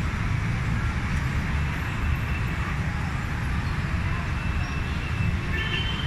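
Steady low outdoor background rumble with an even hiss above it, unbroken throughout.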